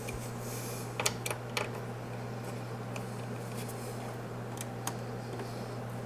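Small clicks and ticks of a screwdriver working the captive screws on a motherboard's M.2 SSD heatsink cover, a cluster about a second in and a few more later, over a steady low hum.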